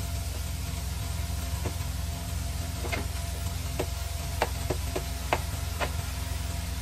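Plastic spatula scraping and tapping chopped broccoli and asparagus off a plastic plate into a steel pot: a string of light clacks, more frequent in the second half, over a steady low hum.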